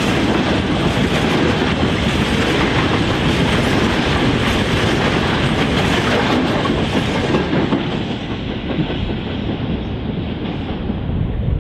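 Freight train's covered hopper wagons rolling past, steel wheels running on the rails. The sound dies away after the last wagon goes by about seven seconds in.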